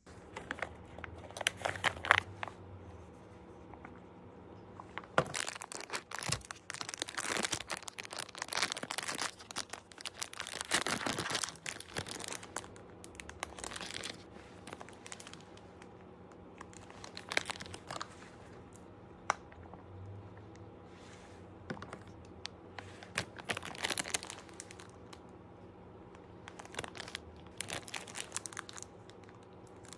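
Thin clear plastic wrapper of an individually packed snack cake (baumkuchen) being crinkled and torn open by hand, in repeated bursts with short pauses.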